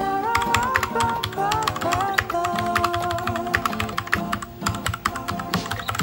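Typing on a Royal Kludge RK84 mechanical keyboard: a quick run of key clacks throughout, over background music with a melody.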